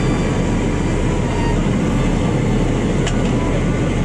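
Steady cabin noise of a de Havilland Canada DHC-6 Twin Otter in flight: the drone of its two PT6A-27 turboprop engines and airflow, with a low hum beneath. A faint click sounds about three seconds in.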